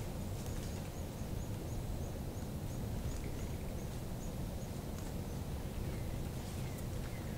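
Woodland ambience over a steady low rumble: a small bird repeats a short, high, thin call about three times a second for the first few seconds, and a couple of falling whistled calls follow near the end.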